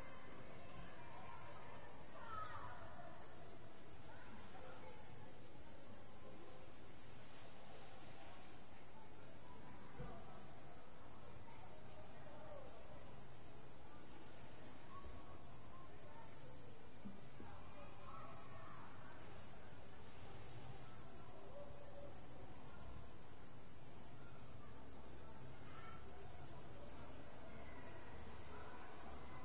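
Crickets chirring in a steady, high-pitched chorus that dips briefly twice, once just after the start and once near the eighth second. Faint, scattered sounds lie lower beneath it, too indistinct to name.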